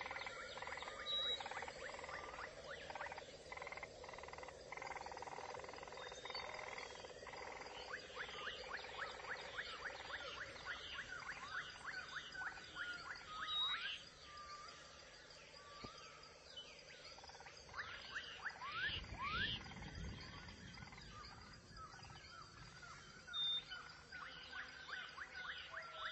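Forest animal chorus: many rapid series of short, high chirping calls over a steady hum, with a brief low rumble past the middle.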